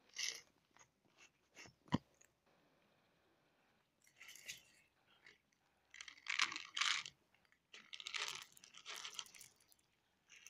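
Several cats crunching dry kibble in irregular bursts of chewing, with one sharp click about two seconds in.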